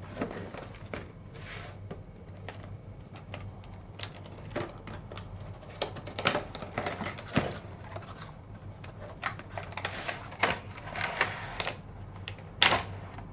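Handling and unpacking a cardboard retail box with a plastic insert tray: irregular clicks, taps and rustles of cardboard and plastic, with the sharpest click near the end.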